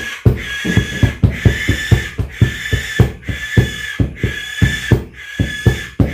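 Music with a steady beat of low drum thumps, about three a second, over a high held tone that breaks off in step with the rhythm.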